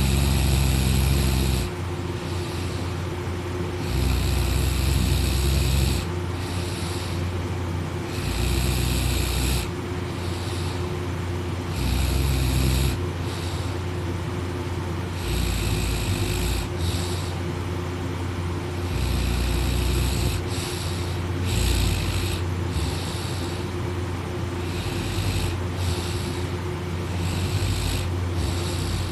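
A sleeping boy snoring, one snore about every three to four seconds, each lasting one to two seconds.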